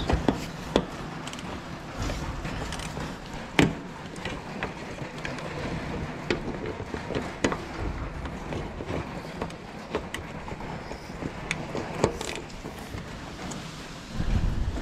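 Scattered clicks and knocks of hand work on a car's front bumper as a bolt is refitted, with a sharper knock about three and a half seconds in. Wind buffets the microphone near the end.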